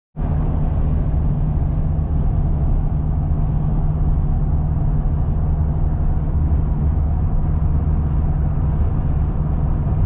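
Pickup truck driving at highway speed, heard from inside the cab: a steady low drone of engine and tyre noise with a constant hum.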